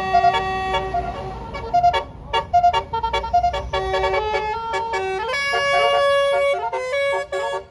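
A bus's basuri musical air horn playing a tune: a run of stepped notes, some held and some short and clipped, then a held chord of higher notes from about five seconds in. A low engine rumble runs under the first part.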